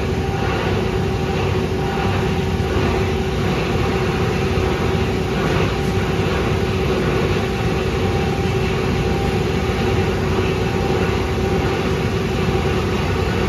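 Scrap copper wire granulator machine running steadily: a loud mechanical rumble with a constant hum, while it discharges finished copper granules.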